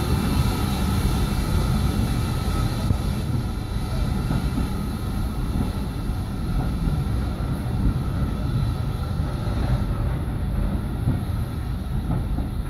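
A train running along the line with a steady rumble, faint steady tones riding above it.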